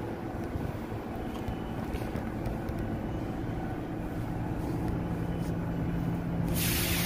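New York City subway train running in the station, a steady low rumble that slowly grows louder, with a loud hiss setting in suddenly near the end.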